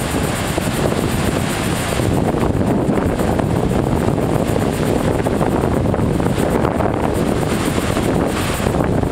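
Wind buffeting the microphone over the steady wash of heavy surf breaking, 9–12 ft storm waves.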